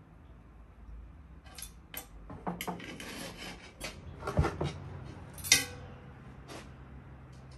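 A metal serving utensil scraping and knocking inside a large metal pot as pilaf is dug out of it: a run of scrapes and clinks, with a dull thump and then a sharp, briefly ringing knock of metal on metal, the loudest, about five and a half seconds in.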